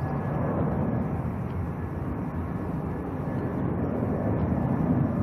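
Distant jet airliner engine noise at the airport, a steady low rumble with no distinct events.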